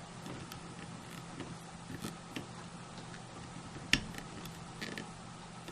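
Faint clicks and light taps of hands pressing a clear stamp on its acrylic block down onto cardstock over a foam mat, with one sharper click about four seconds in, over a low steady hum.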